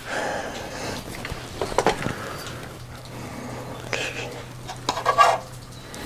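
Light handling noises: several small clicks and clinks as a multimeter and its test leads are moved on the workbench, a few about two seconds in and more around four to five seconds, over a faint steady low hum.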